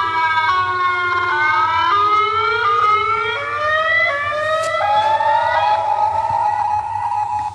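Electronic megahorn siren sounding a loud, fast sequence of stepping and sliding pitched tones, then one long slowly rising tone that cuts off near the end.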